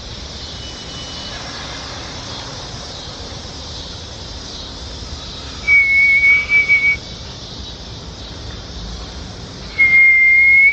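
Two loud, high, steady whistled notes over a steady hiss. The first lasts about a second and breaks into short blasts near its end; the second comes a few seconds later, also about a second long, and rises slightly as it stops.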